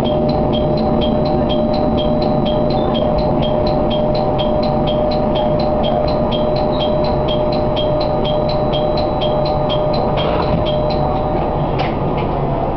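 Tarumi Railway diesel railcar, heard from the cab, rolling slowly along the platform and coming to a stop: a steady running drone with a held tone that cuts out shortly before the end. A rapid high ticking, about four times a second, runs along with it and stops near the end.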